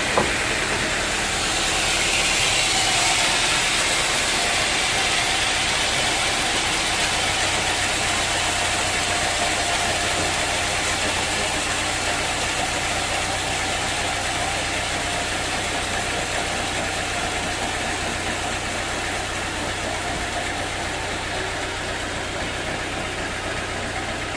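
Sawmill machinery running steadily, a constant mechanical hum with a hiss over it, and a short click just after the start.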